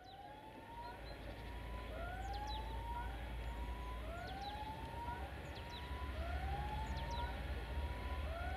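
Level-crossing warning sounder giving a repeated rising electronic whoop, each tone about a second long, recurring just under every two seconds over a low steady rumble.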